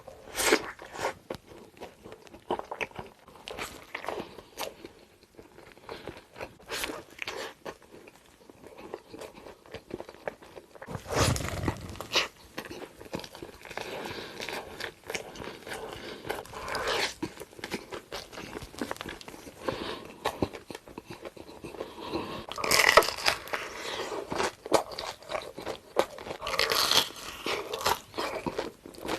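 Someone biting into and chewing a burger: repeated crisp crunches and chewing, with louder bites every few seconds.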